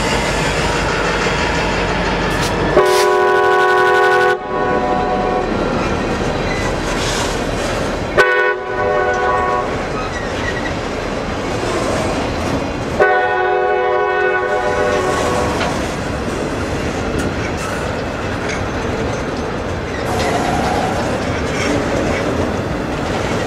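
CSX freight train rolling past at close range: diesel locomotives going by, then the steady noise of the cars and wheels. The train's air horn sounds three times, about three, eight and thirteen seconds in, with the last blast the longest.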